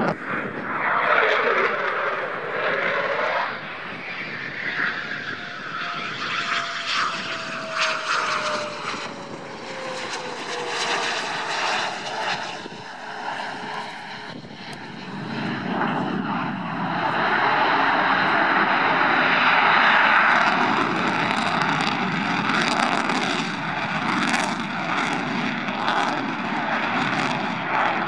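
Jet noise from a Eurofighter Typhoon's twin EJ200 turbofans as it flies past, swelling and fading. A few seconds in, an engine whine slides down in pitch, and the noise grows louder again in the second half.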